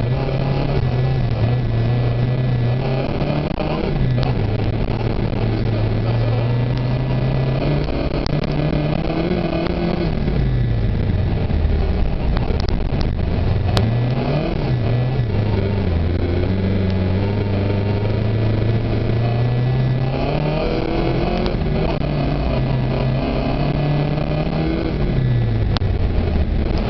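Opel Ascona B's four-cylinder engine heard from inside the cabin, revving up and dropping back several times as the car is driven hard, with tyre and road noise underneath.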